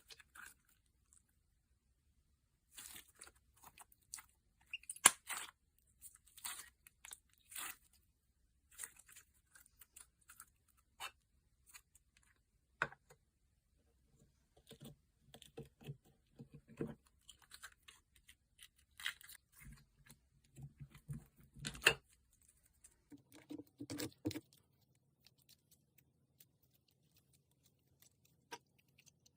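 Thick slime being handled: irregular sticky pops and crackles with quiet gaps between, two louder snaps among them.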